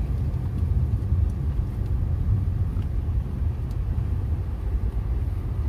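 Steady low road and engine rumble heard from inside the cabin of a car being driven.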